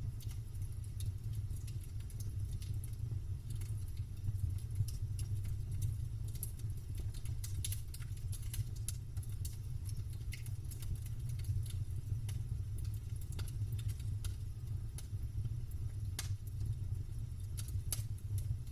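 Wood campfire crackling, with scattered sharp pops and snaps of burning wood over a steady low rumble.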